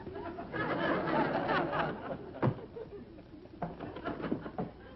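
Studio audience laughing, dying away about two seconds in, followed by a single sharp thump.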